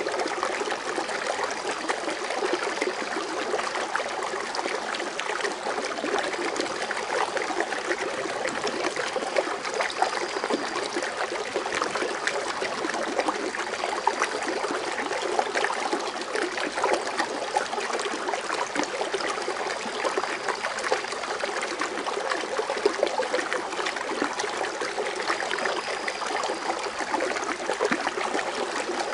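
Foaming water fountain splashing and bubbling steadily, with many small droplet splashes in an even rush of falling water.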